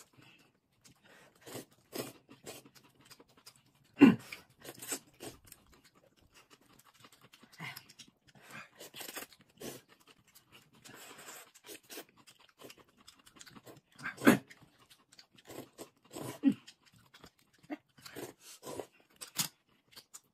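Close-up eating sounds: rice noodles being slurped and food chewed, as scattered short slurps and mouth smacks. The loudest come about four seconds in and again about fourteen seconds in.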